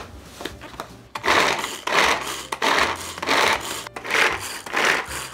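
Carrot being minced in a hand-operated Daiso vegetable chopper, worked in six quick strokes, each under a second long, starting about a second in.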